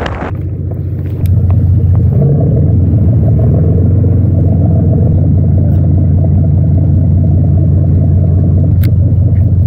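A sport fishing boat's engine running with a steady low rumble, stepping up in loudness about a second in.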